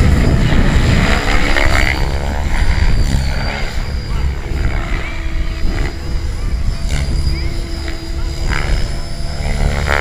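Compass 7HV electric 700-size RC helicopter flying aerobatics: its main rotor chops and whooshes over a steady motor whine. The pitch sweeps as the helicopter passes close in the first couple of seconds, and again at the end.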